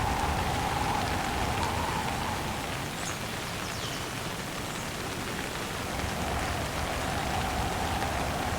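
Steady rain falling in a windstorm, an even hiss with a low rumble of wind that eases a little midway and swells again near the end.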